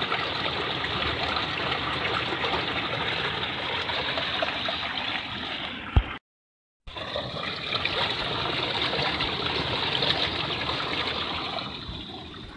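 Spring water running steadily out of rocks. The sound cuts out completely for about half a second a little past halfway, just after a short knock, then the running water resumes.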